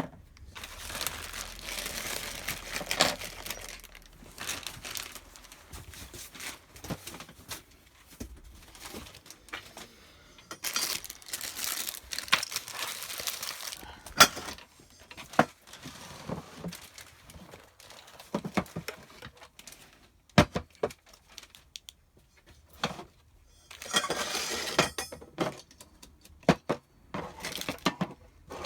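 Plastic packaging crinkling and rustling in irregular stretches, with scattered sharp clicks and knocks of small parts being handled.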